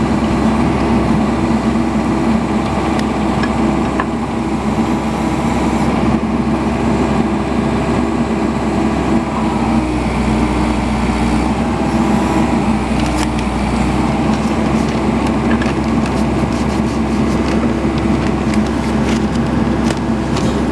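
Excavator engine running steadily while it holds a concrete septic tank section on a chain, with a few short knocks in the second half.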